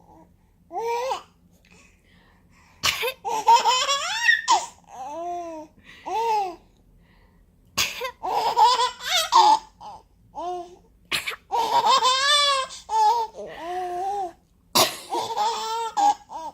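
Sneezes several times, each followed by a baby's giggling laughter, with short babbling calls in between.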